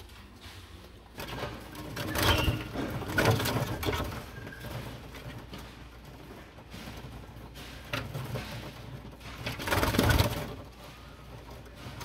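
Soft calls of young tinamou chicks, with louder stretches of noisy rustling about two to four seconds in and again around ten seconds.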